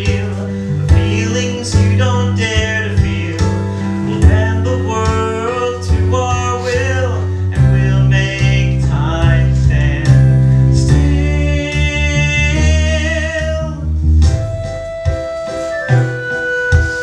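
A musical-theatre song performed live: singing over instrumental accompaniment of guitar and piano. The singing drops away about fourteen seconds in, leaving the keyboard accompaniment.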